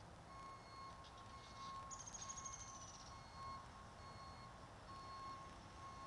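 Faint, repeated electronic beeping at one steady pitch, like a distant alarm, going on and off about every half second. About two seconds in, a short, high, thin trill falls slightly in pitch for about a second.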